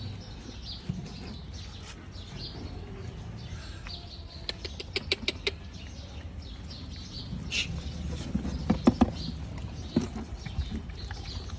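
A pack of puppies eating together from a shared plastic tray: busy chewing, lapping and patter, with a quick run of sharp clicks near the middle and a few louder knocks later on.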